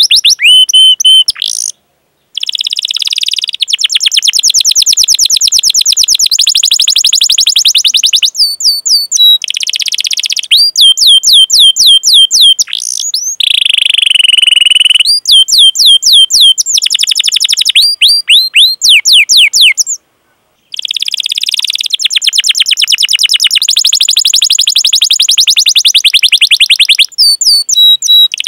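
Domestic canary singing loudly. Long fast rolling trills alternate with runs of sharp, downward-sweeping 'cuit cuit' chirps. The song breaks off completely for a moment twice, about two seconds in and about twenty seconds in.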